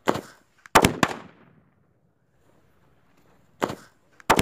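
A Diwali "three sound" firecracker going off in a string of sharp bangs that echo. One bang comes at the start, a quick group of bangs follows just under a second in, and after a pause of about two and a half seconds, two more bangs come close together near the end.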